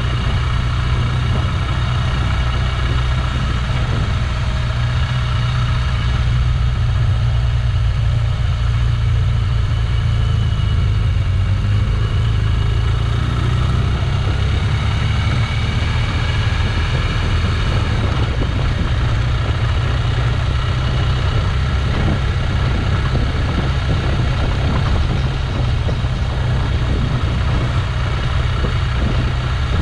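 Motor vehicle running steadily on the road: an even, low engine drone with road noise, no change in pace.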